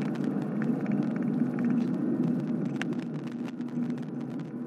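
Cabin sound of a 2016 Cadillac CTS-V's supercharged V8 with wind and road noise as the car slows off the throttle for a corner. Sharp clicks and rattles come from a loose camera mount, and the sound fades down toward the end.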